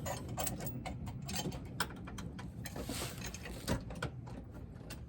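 Scattered small metallic clicks and taps of mounting bolts and hardware being handled and threaded by hand into a pickup truck's frame for step rails.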